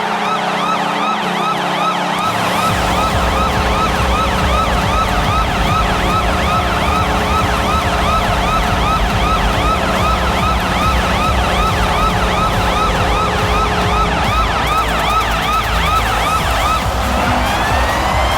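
Electronic yelp siren, rapid rising-and-falling whoops several times a second, over a steady low tone; a pulsing bass beat comes in after about two seconds, and near the end the siren changes to a slow wail.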